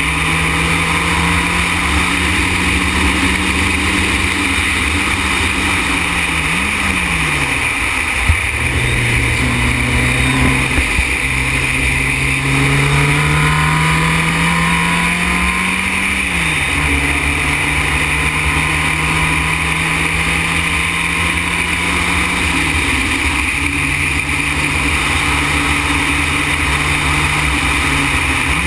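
Formula Renault single-seater's engine heard onboard at high revs, its note climbing slowly as it accelerates, then dropping sharply four times under braking and downshifts into corners. A single sharp knock about eight seconds in.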